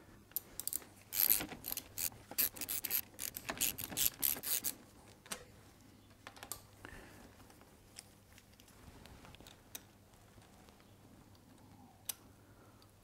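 Socket ratchet clicking in short runs as a brake caliper's Torx mounting bolt is wound out. After about five seconds there are only a few light clicks and taps as the loose bolt is turned out by hand.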